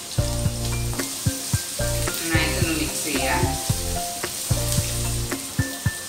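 Chopped onion, green chillies, ginger and peanuts sizzling in hot oil in a wok, with a wooden spatula stirring and scraping through them. Background music with a bass line plays over it.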